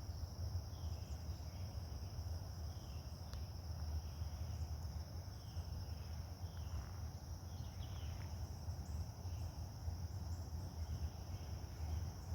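Steady high-pitched insect chorus in woodland, with faint short chirps about once a second and a low rumble underneath.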